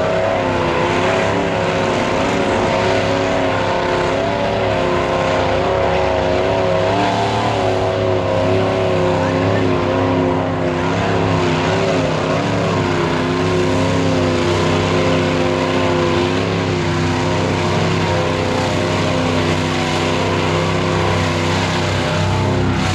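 Mud-bogging pickup truck engine held at high revs, its pitch wavering up and down as the truck plows through a deep mud pit, over a steady wash of splashing mud and water.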